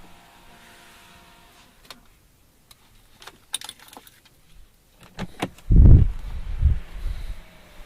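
A faint steady hum that fades out about two seconds in, a few light clicks and a jingle, then a heavy low thump with a rumble about six seconds in and a smaller one just after.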